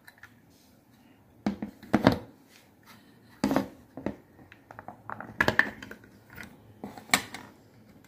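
Plastic clicks, knocks and scrapes from handling a small blue rechargeable fan and sliding off its battery cover to expose the 18650 lithium-ion cell, several sharp clatters a second or so apart.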